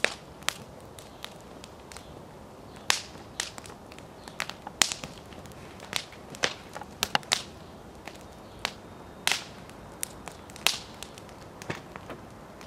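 Wood fire in a metal fire bowl crackling: irregular sharp pops and snaps of burning wood, some much louder than others.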